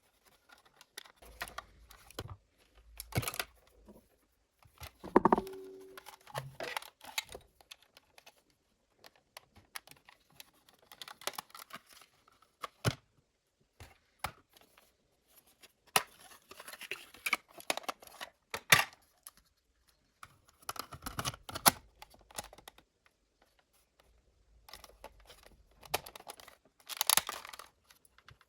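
Irregular clicks, taps and scraping from hands and small tools working on a cassette player's plastic and metal parts, with a few sharper knocks and a brief squeak about five seconds in.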